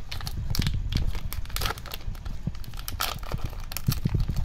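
Plastic wrapper of a trading-card booster pack crinkling and tearing as it is opened by hand, with irregular crackles throughout.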